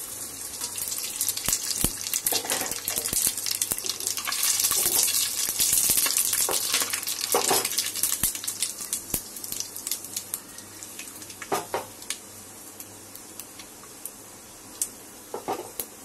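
Whole spices (bay leaves, peppercorns, star anise, cinnamon, cloves) dropped into hot oil in a stainless steel pot, sizzling and crackling. The sizzle fades after about ten seconds to scattered pops.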